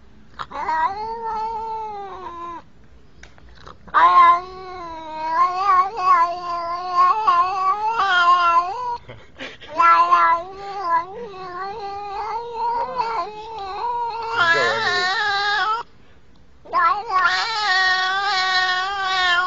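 Domestic cat meowing in a series of four long, drawn-out calls whose pitch wavers up and down, the longer ones lasting several seconds each.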